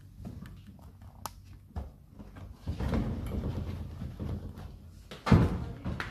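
Rustling and knocking of parts being handled inside a VW Beetle's cabin, with scattered clicks and one loud thump about five seconds in.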